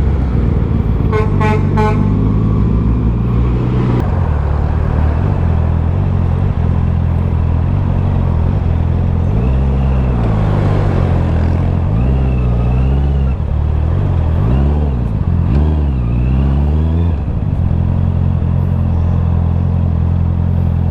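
Honda CB650R's 649cc inline-four with an Akrapovic full exhaust system running on the move. Its note dips and climbs several times past the middle as the throttle is rolled off and on. A vehicle horn gives about four quick beeps about a second in.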